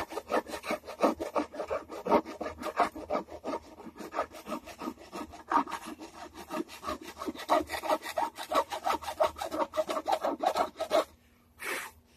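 A hand file rasping back and forth across the edge of a wooden Strat-copy guitar body, rounding over a squared corner: quick, even strokes, several a second. The strokes stop about eleven seconds in, with one last stroke just after.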